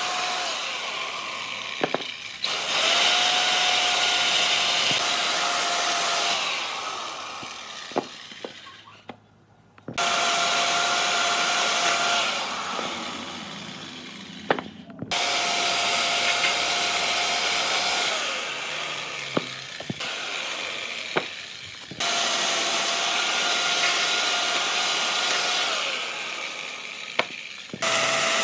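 Handheld electric power tool working wood, switched on again and again. Each time it starts suddenly with a steady whine, runs a few seconds, then winds down, about every five to seven seconds, with a few sharp knocks between runs.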